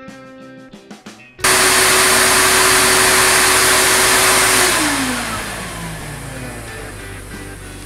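Vacuum motor of a screen-printing vacuum table switched on about a second and a half in, running with a loud steady rush, then switched off, its whine falling in pitch as it spins down.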